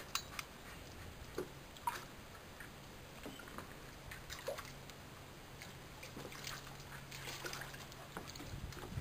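Water sloshing and splashing in a small plastic paddling pool as a dog wades in it and pushes a Boomer Ball around, with irregular small splashes that come more often toward the end.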